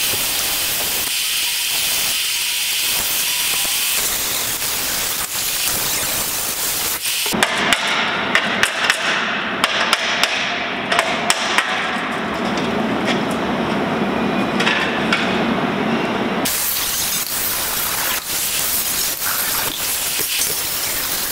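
Power-tool work on an aluminium carrier rack in three stretches. First a cordless drill runs as the rack's screws are driven out. In the middle come many sharp metallic taps and knocks. In the last few seconds an angle grinder with a cutting wheel cuts the aluminium with a steady hiss.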